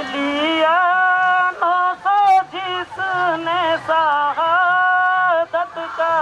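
One voice singing a slow chant, holding long notes that bend up and down between phrases.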